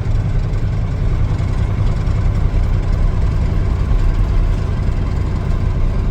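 Vehicle engine and road noise while driving: a steady low rumble with a constant hiss above it, unchanging throughout.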